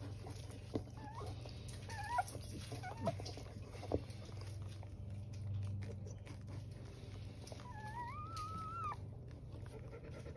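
Labradoodle whimpering: a few short high squeaks in the first few seconds, then one longer wavering whine near the end, over a steady low hum.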